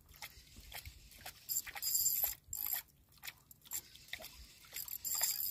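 Light-jigging fishing reel being cranked against a hooked fish on a bent rod: irregular clicks and crackles from the reel and handling, with short spells of hiss about two seconds in and near the end.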